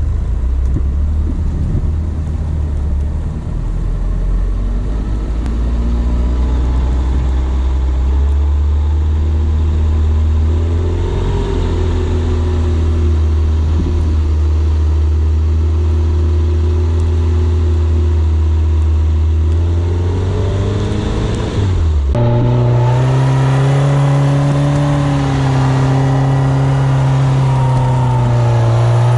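Suzuki SJ410's small four-cylinder engine running under load off-road, its note rising and falling with the throttle. About three-quarters of the way through, the note jumps suddenly higher and holds there.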